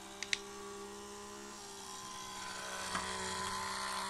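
Small electric motor of a Tipping Point coin-pusher toy whirring steadily as the game runs, with two quick clicks about a third of a second in.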